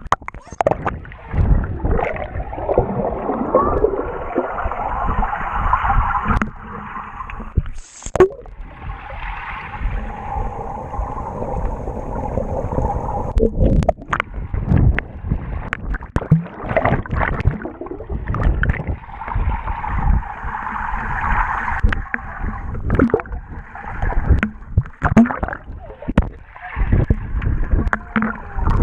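Water heard by a camera held at and under the surface: muffled gurgling and bubbling, broken by frequent knocks and splashes as swimmers move around it.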